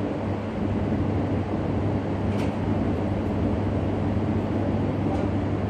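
Steady mechanical hum and rumble with a constant low tone, and one faint click about two and a half seconds in.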